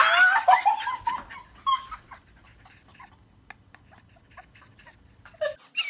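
A young woman's high-pitched excited squeal that slides down in pitch and trails off over about two seconds, followed by a few faint light taps, with more squealing starting near the end.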